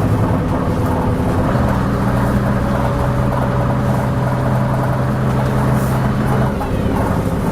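Leyland Atlantean double-decker bus's diesel engine running under way, heard on board. The engine note steps up about a second and a half in, holds steady, then drops back near the end, as with a gear change.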